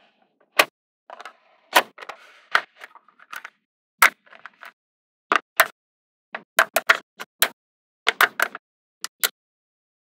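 Small magnetic balls snapping together, a string of sharp, irregular clicks, some in quick pairs and clusters, with a softer rattle of balls rolling against each other in the first few seconds.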